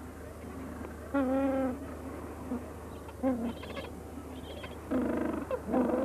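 Gentoo penguins calling in a colony: several short pitched calls, one about a second in, one at three seconds and two near the end, over a steady low hum.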